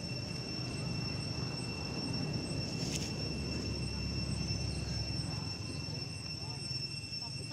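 Outdoor ambience: a steady low rumble with a constant high-pitched insect drone over it, and a single click about three seconds in.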